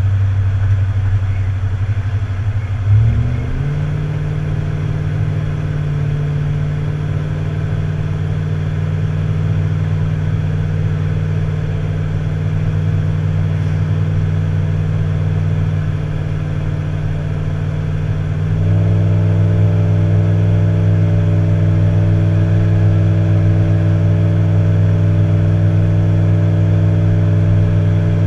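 Tow vehicle's engine running steadily while driving. Its note shifts briefly about three seconds in, then steps up to a louder, fuller note about two-thirds of the way through.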